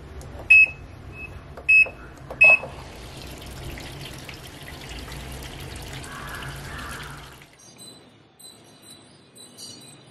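Top-loading washing machine's control panel beeping three times as its buttons are pressed, then a steady hiss of water running into the drum for about five seconds before it cuts off.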